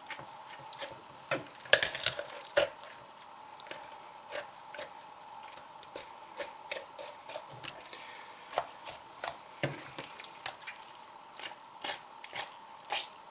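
Small keychain knife cutting up a raw chicken: irregular wet clicks and squishes as the blade works through skin, meat and joints.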